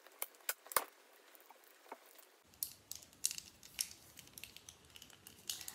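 Plastic segments of a twisting snake fidget toy clicking and rattling as it is handled and put back together, in irregular small clicks.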